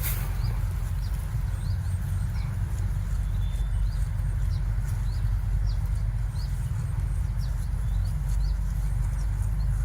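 Steady low rumble, like wind on the microphone, with faint short high chirps of small birds every half second or so.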